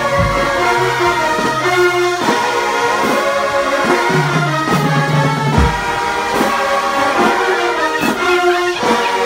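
Brass band music: horns playing a tune in sustained notes that move from pitch to pitch.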